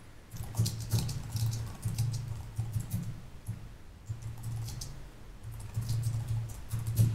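Typing on a computer keyboard: a run of quick keystrokes, with a short pause near the middle.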